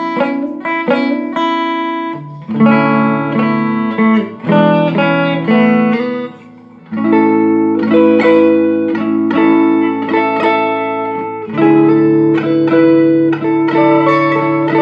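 Electric guitar played through a Mesa Boogie Studio .22+ tube combo amp: picked notes and arpeggiated chords left to ring, with a short lull about halfway through. It is a play test of the amp after repair of a fault that made its sound cut in and out.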